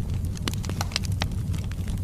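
Wood fire burning in a fireplace: burning logs crackling with scattered sharp pops over a steady low rumble of the flames.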